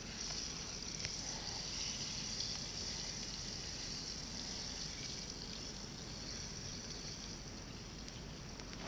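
Frying pan sizzling on a campfire: a steady, high hiss that slowly eases off near the end.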